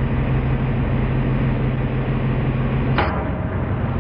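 A 500-ton hydraulic press runs with a steady hum as it crushes a stack of plywood. About three seconds in, the compressed plywood gives a single sharp crack as it splits.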